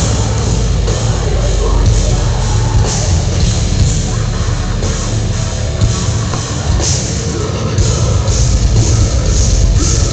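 Live heavy rock band playing loud: distorted electric guitars, bass and drums, with cymbal crashes standing out.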